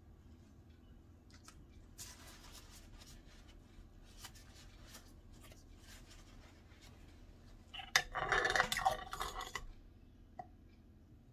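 A turntable spinning a freshly poured acrylic painting, giving a faint rubbing sound with scattered small clicks. Near the end comes a louder scraping rub of about a second and a half as the spin is stopped.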